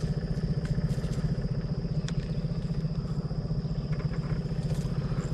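Outboard motor of a fishing boat running steadily, with an even low pulsing beat that does not change.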